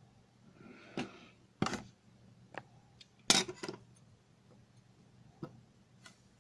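Handling noise of a delidded CPU turned over in the fingers: several scattered light clicks and taps, the strongest a little past three seconds in.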